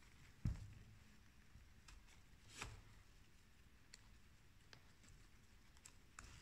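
Faint handling noises from a Mystic Majestic X kitesurf harness being worked by hand at its side strap and buckle: a soft thump about half a second in, a short rustle a couple of seconds later, and a few small clicks.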